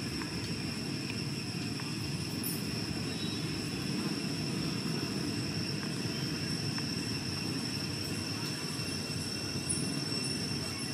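Steady outdoor ambience: a constant low rumble with a continuous high, even insect drone over it.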